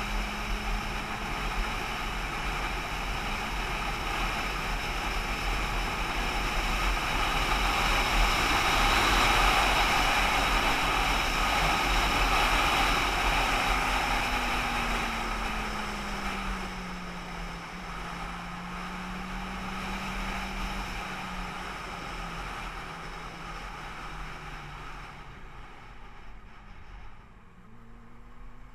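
A vehicle's engine running while driving, with road and wind noise. The engine note is steady at first, drops about halfway through as it eases off, and the sound grows fainter toward the end.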